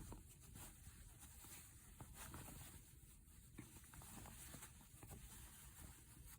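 Near silence, with faint rustling and small scattered ticks of cloth being handled as mask fabric is lined up edge to edge.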